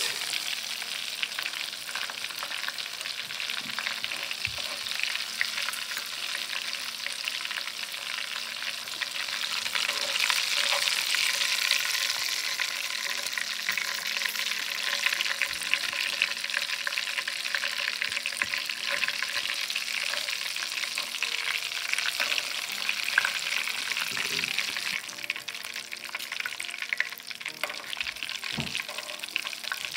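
Hot oil sizzling and crackling steadily in a cast iron skillet as breaded whole smelt pan-fry in it, with an occasional click of metal tongs. The sizzle grows a little quieter near the end.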